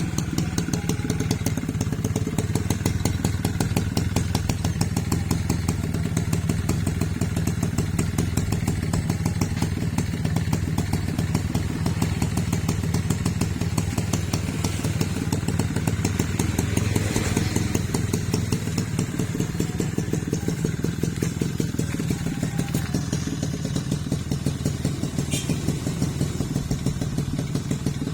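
1997 Suzuki Tornado GX motorcycle's two-stroke single-cylinder engine running steadily with an even, rapid exhaust beat.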